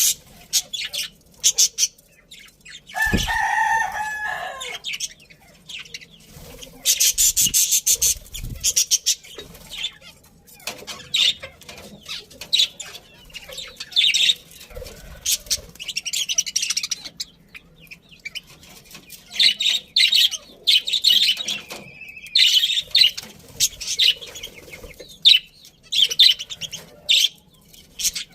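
A flock of budgerigars chirping and chattering in rapid high bursts, with wing flutters. About three seconds in, a longer, lower call lasting about two seconds stands out.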